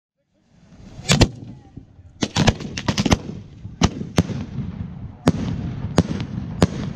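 Fireworks going off: about a dozen sharp bangs spread irregularly over a low, steady rumble, starting about half a second in.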